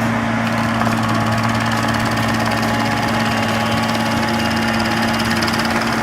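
Herder SCT-410H stump grinder's engine running with a steady, even hum.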